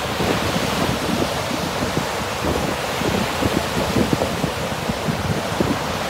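Sea waves breaking and washing up a pebbly beach in a steady rush, with wind rumbling on the microphone.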